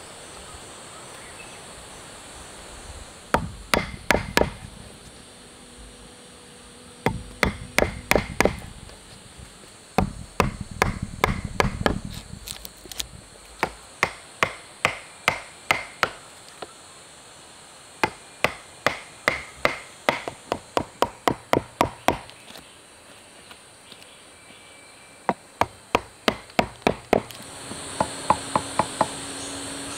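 Wood being struck with a tool in quick runs of sharp knocks, about five a second, each run lasting a second or a few before a short pause. Insects buzz steadily in the background.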